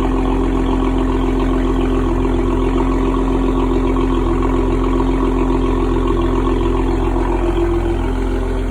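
Dodge Challenger on its stock exhaust, engine idling steadily.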